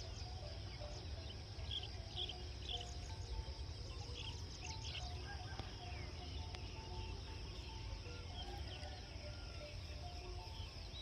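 Countryside ambience: a steady high-pitched insect chorus, with scattered short bird chirps and a low steady rumble underneath.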